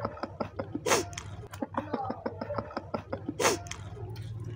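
Close-up eating: fried chicken and raw vegetables being chewed, a fast run of crunching clicks at about five a second. Two louder, sharp sounds come about a second in and again about three and a half seconds in.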